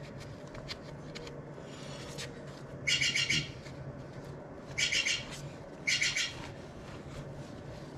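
A scrub jay gives three harsh, rasping squawks, each about half a second long, about three, five and six seconds in.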